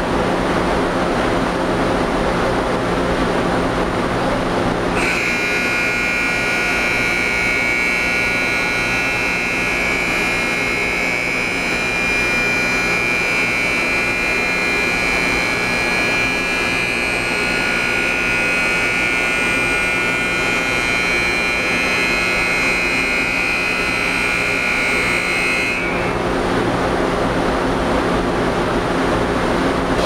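Aluminium stack melter furnace running with a loud, steady rushing noise and a low hum. A high, steady tone joins it about five seconds in and cuts off shortly before the end.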